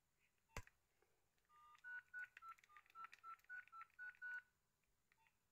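Nokia mobile phone keypad tones: about ten short, faint beeps at a few slightly different pitches as the keys are pressed, after a single click.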